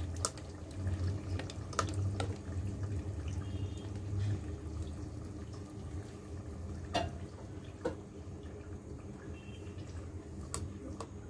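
Freshly added tomato-onion masala paste cooking in hot oil in a steel pot, bubbling and spluttering as it is stirred with a silicone spatula. A few sharp clicks come from the spatula against the pot.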